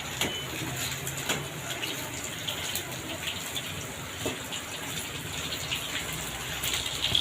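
Boneless chicken 65 pieces deep-frying in hot oil in a kadai: a steady sizzle with a few scattered sharp crackles. The sizzling means moisture is still cooking out of the pieces; once it dies down, the chicken is done and ready to lift out.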